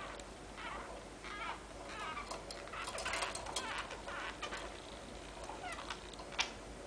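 Male canary with noisy breathing: a run of short chirps and clicks, busiest in the middle, with one sharp click near the end.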